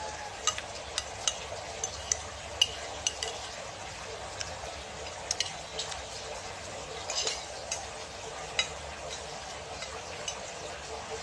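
A metal spoon clinking and scraping against a plate while eating: small irregular clicks over a steady background hiss.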